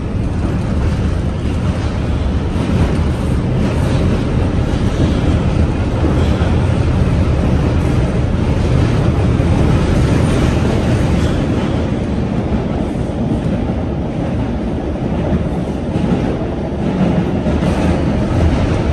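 Inside an R142 subway car running through a tunnel: a loud, steady rumble of the train's wheels on the rails and of the car moving.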